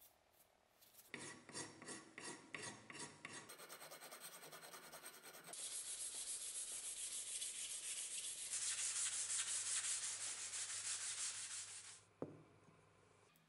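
Hand sanding of a small wooden piece: quick back-and-forth rubbing strokes in several stretches, loudest in the later part, ending with a single knock.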